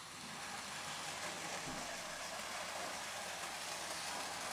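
Graham Farish N gauge 'N' class model locomotive running around set track on a DC supply, a faint steady whir and hiss of its motor and wheels. It grows a little louder over about the first second, then holds even. It is smooth and quiet as it runs in brand new.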